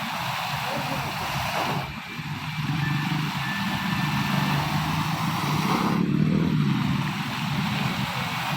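Steady rushing water, with abrupt changes in the sound about two and six seconds in.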